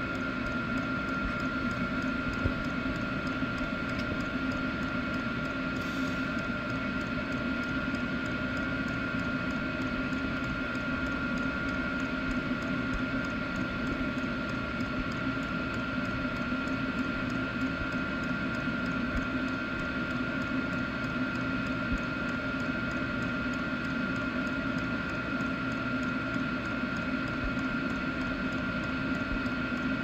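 Chinese diesel air heater running at its maximum heat setting together with an inline duct fan: a steady whirring rush with a constant high whine.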